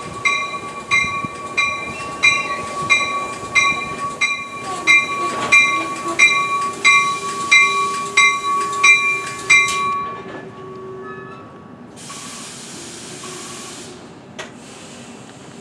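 NJ Transit commuter train's bell ringing steadily, about one and a half dings a second, as the train rolls in and stops. The ringing stops about ten seconds in. A burst of air hiss from the brakes follows a couple of seconds later as the train stands.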